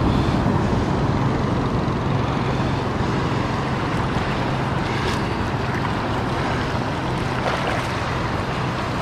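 Steady wash of shallow surf over the sand, with wind rumbling on the microphone.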